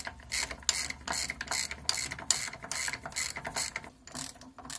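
Hand ratchet wrench clicking in quick strokes, about three to four a second, as the bolts of a gearbox mount are backed out; the strokes let up near the end.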